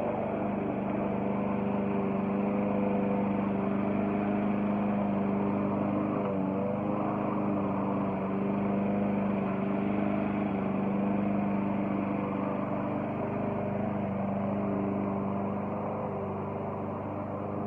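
Gas walk-behind lawn mower engine running steadily as the mower is pushed across the grass, growing slightly fainter near the end.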